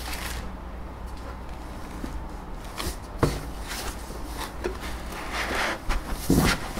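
Unpacking handling noise: a single knock about three seconds in, then rustling and a low thump near the end as parts are rummaged in a cardboard box, over a steady low hum.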